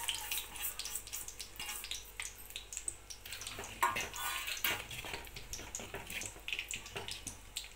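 Wooden spoon stirring thick, sticky rice-and-lentil pongal in a clay pot as crumbled jaggery is mixed in: irregular wet scrapes and clicks.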